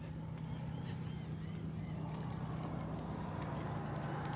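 Steady low engine hum under a faint rushing noise, with a few faint light ticks.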